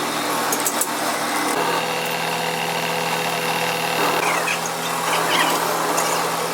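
A machine running steadily with a hum that shifts about a second and a half in, plausibly a workshop power tool or lathe at work.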